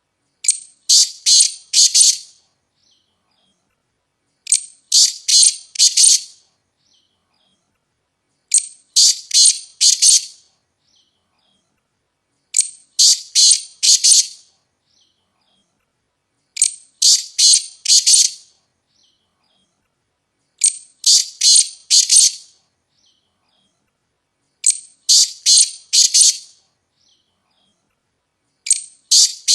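Black francolin (black partridge) calling: each phrase is a short high note followed by four or five scratchy, grating notes and lasts about two seconds. The phrase repeats about every four seconds, with silence between.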